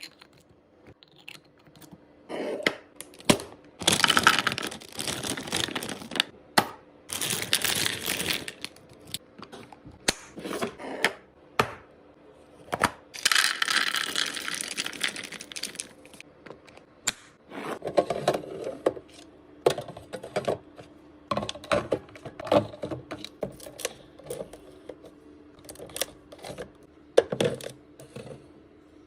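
Restocking sounds of containers and packaged food being handled: scattered clicks and knocks of items set down and lids handled, broken by three noisy stretches of a couple of seconds each.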